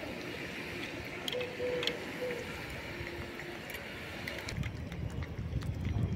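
Cats chewing and licking wet cat food from a metal plate: scattered small wet clicks over a steady street background hum, with a low rumble growing over the last second or two.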